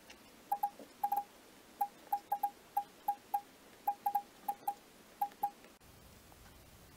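Smartphone on-screen keyboard key-press tones: about seventeen short, high blips in quick irregular succession as a word is typed, then they stop. The footage runs at double speed, so the taps come fast and sound raised in pitch.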